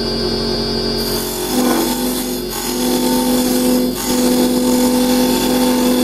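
Carbide chisel hollowing into the end grain of a spinning block of tanalised wood on a lathe. The cut comes in about a second in as a hiss with a steady droning tone over the lathe's hum, and it breaks off briefly twice as the tool is lifted and re-engaged.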